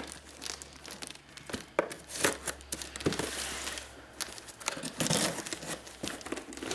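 Utility knife cutting through packing tape and a plastic packing-slip pouch on a cardboard shipping box, with irregular crinkling, scraping and tearing.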